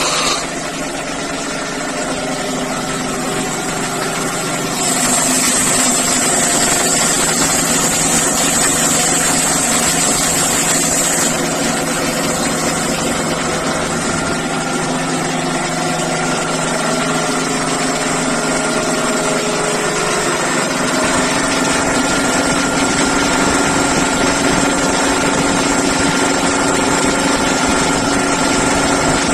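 Breathing-air compressor running steadily while charging an SCBA cylinder with compressed air. A high hiss joins the motor's hum about five seconds in and lasts about six seconds.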